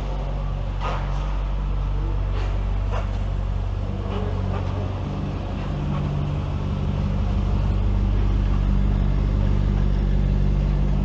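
Car engine idling steadily: a low, even rumble that grows a little louder about halfway through.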